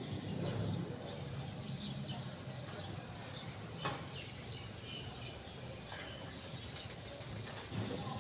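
Outdoor ambience with birds chirping here and there over a low steady rumble, and one sharp click about four seconds in.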